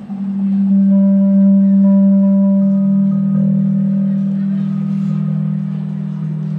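A sustained, low, ringing drone tone that swells in at the start. A second, slightly lower tone joins about two and a half seconds in, and the sound then slowly fades a little.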